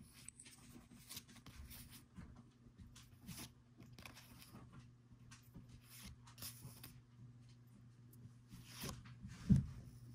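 Trading cards sliding and rubbing against each other as they are flipped off a stack one at a time, a series of short scattered swishes, over a low steady hum. One louder thump comes near the end.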